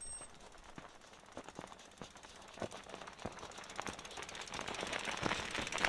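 Bicycle freewheel ticking rapidly as the bike coasts over rough ground, with scattered knocks and rattles from the tyres and frame on stones. The rolling noise builds toward the end.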